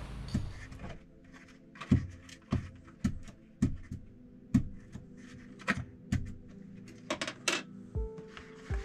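A fork jabbing holes into a small potato on a plate, a run of sharp, irregular clicks and knocks about every half second, over a faint steady hum.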